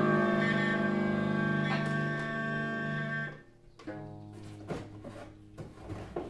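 Free-improvised instrumental music from a keyboard, electric bass and cello trio. Long held tones sound together, then break off about three seconds in. Sparse, quieter plucked notes and small taps follow.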